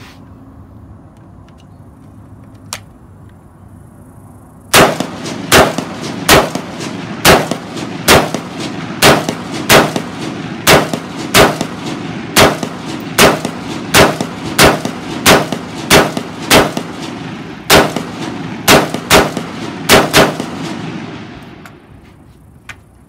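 Beretta ARX-100 rifle fired in slow semi-automatic, about twenty shots at roughly one every three-quarters of a second, starting about five seconds in, each crack followed by a short echo. Near the end a few shots come closer together before the firing stops.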